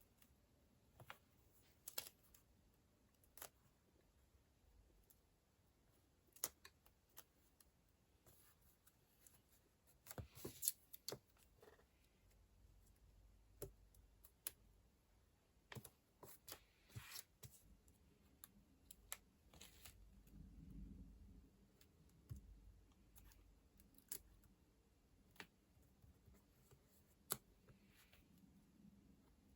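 Faint, scattered small clicks and taps of stationery being handled, with a quick run of clicks about ten seconds in.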